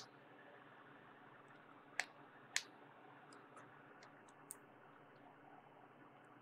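Near silence with light clicks from hands handling wires and the plastic case of an opened power bank during soldering: a sharp click at the start, two more about two seconds in, half a second apart, then a few fainter ticks.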